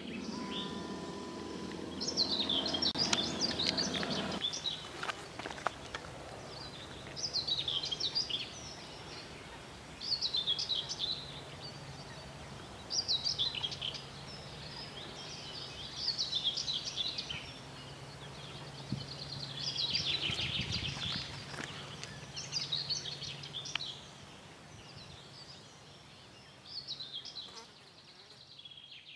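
A small songbird singing short, rapid, high-pitched phrases about every three seconds, over a faint steady low hum.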